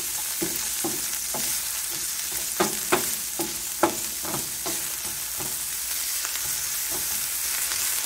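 Carrots, green beans and mushrooms sizzling as they sauté in chicken fat in a nonstick frying pan, with a wooden spoon scraping and knocking against the pan as they are stirred. The strokes come irregularly, a few louder ones about three to four seconds in.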